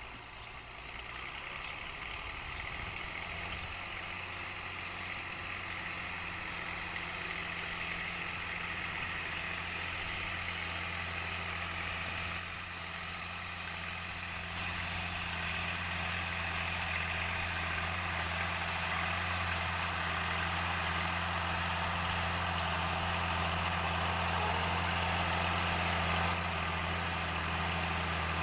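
Six-cylinder diesel engine of a Fiatagri 100/90 DT tractor running at a steady speed, growing gradually louder as it draws nearer.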